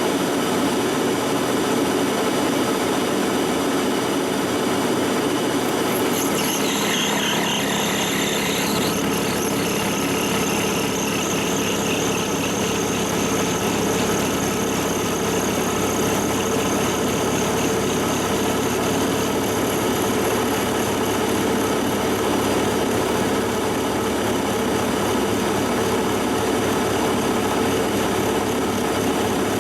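Monarch lathe running steadily with a constant mechanical hum. About six seconds in, higher steady tones and a hiss join as the insert cuts the hardened steel of a tractor pinion shaft.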